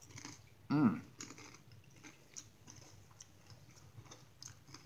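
A person chewing a mouthful of tuna on a cracker, with small wet clicks of the mouth throughout. About a second in comes a short hummed 'mm', the loudest sound.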